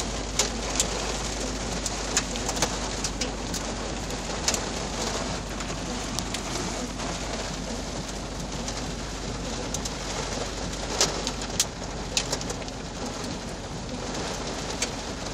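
Heavy rain drumming on a car's roof and windshield, heard from inside the cabin, with scattered sharp ticks of drops striking the glass. A steady low rumble of the moving car runs underneath.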